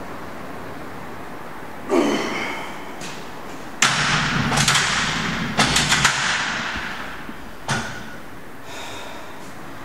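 A pair of iron dumbbells set down onto a metal dumbbell rack: a sharp clank about four seconds in, then several more clanks and rattles as the weights settle. There is a thud about two seconds in and one more knock near the end.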